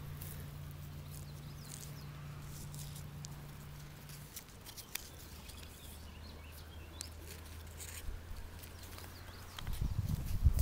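Faint rustling and scuffing over dry dirt, twigs and leaves, with scattered small ticks, over a steady low hum. About a second before the end, heavy rumbling handling noise on the microphone.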